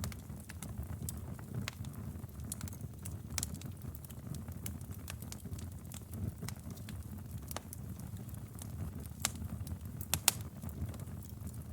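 Wood fire crackling in a fireplace: a steady low rumble of flames with scattered sharp pops and snaps, the loudest two close together about ten seconds in.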